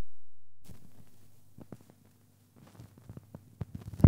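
A low hum fades away over the first second and a half. Then there is faint hiss with scattered small clicks and taps from acoustic guitar and electric bass being handled, and a sharp strike right at the end.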